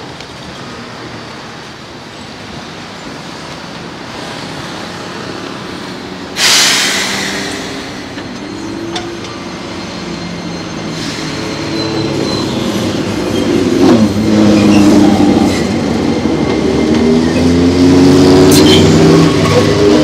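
Enoshima Electric Railway (Enoden) train running on the track alongside, getting louder from about eleven seconds in as it comes close, with several wavering tones over the running noise. A sudden loud rush of noise about six seconds in fades over a couple of seconds.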